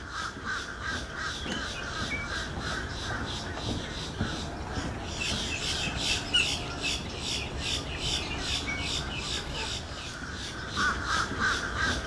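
Wild birds calling, with a fast, evenly repeating high chatter that grows louder about five seconds in.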